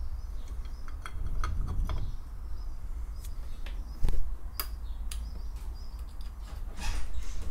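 Light clicks and taps of a Suzuki GS500 carburettor body being handled and turned over on a workbench, with a sharper knock about four seconds in and a rustle near the end.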